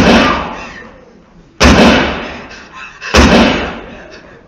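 Stage pistol firing blanks: three sharp shots about a second and a half apart, each ringing out in the theatre's reverberation.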